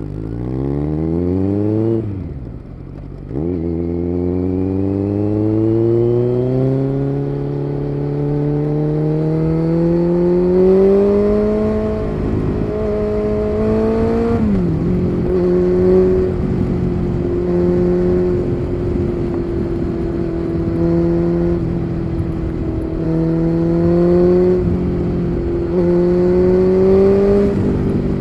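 Kawasaki Z900's inline-four engine through an aftermarket SC Project exhaust, pulling hard under way: a quick rise in pitch, a short dip at a gear change about two seconds in, then a long steady climb until another shift about fourteen seconds in, after which it runs at a fairly steady speed with small rises and falls.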